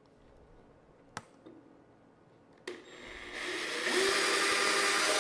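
A couple of sharp clicks, then a cordless drill starts about two and a half seconds in, speeds up and runs steadily as its bit bores a hole into drywall.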